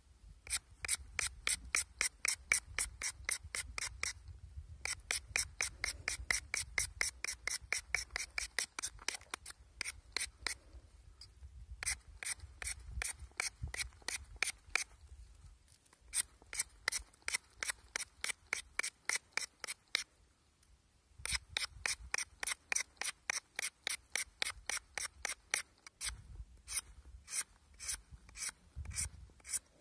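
Rapid rasping strokes, about four or five a second, of a small piece rubbed back and forth by hand against a white bar. The strokes come in runs of a few seconds with short pauses between.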